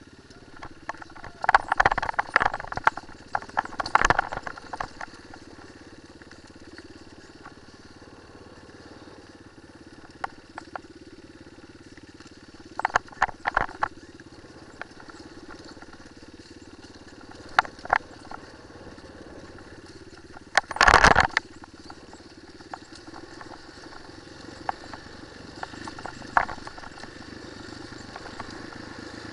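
Single-cylinder enduro motorcycle running low and steady while riding a rocky trail, broken by bursts of sharp knocking and rattling as it goes over rocks; the loudest burst comes about two-thirds of the way through.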